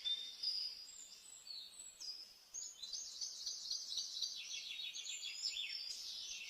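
Birds chirping softly: a few short high whistled notes, then from about two and a half seconds in a fast run of high chirps, each sliding down in pitch, about five a second.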